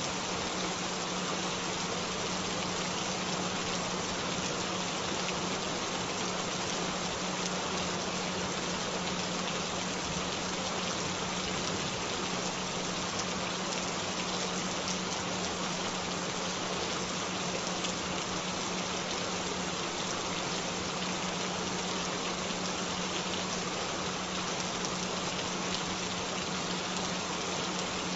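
Steady rain with a constant low tone held underneath it, an audio 'frequency' track mixed with the rain and meant for headphone listening. Nothing changes from start to end.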